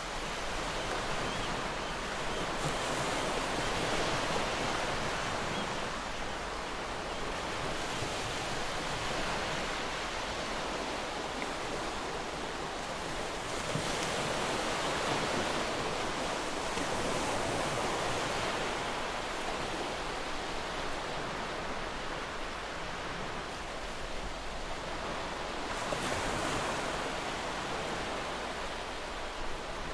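A large waterfall: a steady rush of falling water that swells and eases slightly.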